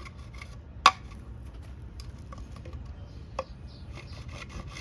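Saw teeth on a fixed-blade knife scraping and rasping against wood in short, uneven strokes, with a sharp click about a second in and a lighter knock later. The saw is barely cutting, its teeth set too far out.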